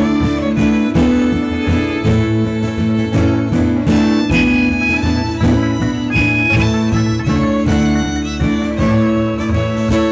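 Acoustic folk band playing an instrumental break between sung verses. Strummed guitar and plucked strings keep a steady rhythm under a melody on fiddle and a high wind instrument.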